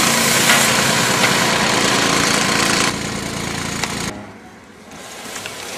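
Automated sheep dip machine spraying: a loud, even hiss of the spray jets over the steady running of its pump motor. The spray hiss stops about three seconds in, the motor runs on for about another second, then the sound drops away sharply.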